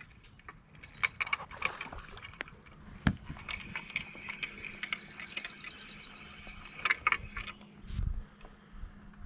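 Fishing reel being cranked to bring in a hooked fish: irregular clicks and rattles, with a run of fine, evenly spaced ticks in the middle. A low steady hum comes in near the end.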